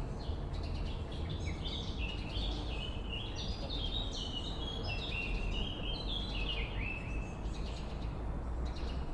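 Swallow twittering: a quick run of high, chattering notes that starts about a second in and fades out near the end, over a steady low rumble.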